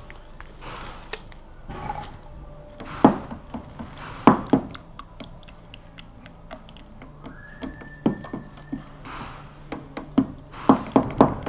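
Scattered knocks, taps and rustling from handling a plastic tub of fibreglass resin and tools while catalyst is stirred in; the loudest knocks come about three and four and a half seconds in, with a run of taps near the end. A thin high tone sounds for about a second and a half about seven seconds in.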